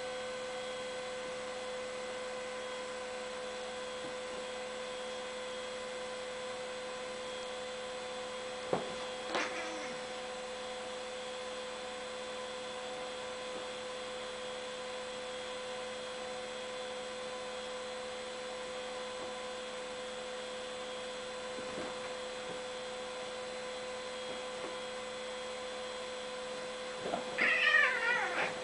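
Bengal cats fighting: one short yowl about a third of the way in, then a louder run of wavering growls and yowls near the end. A steady electrical hum runs underneath.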